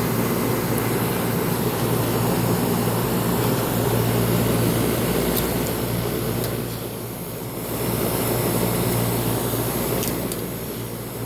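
1993 Heil 5-ton central air-conditioner condensing unit running: a steady compressor hum under the noise of the condenser fan, briefly quieter about seven seconds in. The fan blade is mounted the wrong way round, so little air comes through, and the compressor is straining with the unit running hot.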